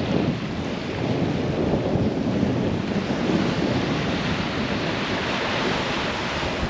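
Surf washing on the beach, with wind buffeting the microphone, as a steady, fairly loud rush.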